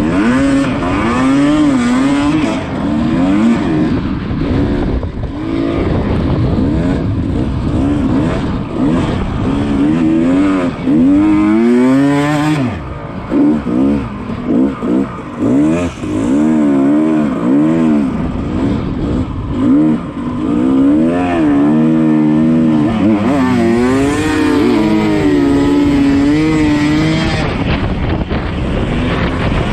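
Dirt bike engine being ridden hard, its pitch rising and falling constantly as the throttle is worked and gears change. Partway through, a few seconds of choppy on-off throttle.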